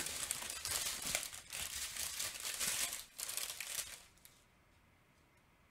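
Strips of small plastic bags of diamond-painting drills crinkling as they are handled and shuffled through, stopping about four seconds in.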